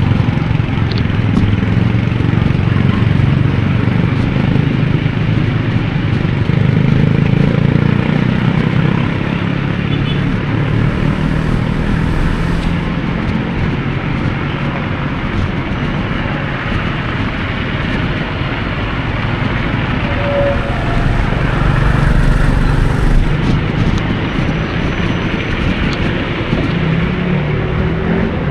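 City road traffic heard from a moving bicycle: car and motorcycle engines running close by, over a steady low wind rumble on the camera's microphone.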